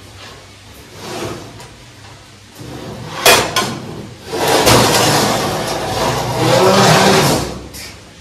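Large stainless-steel dish-drying rack being dragged off a kitchen counter and lifted: a sharp metal clank a little after three seconds in, then about three seconds of loud metal scraping and rattling.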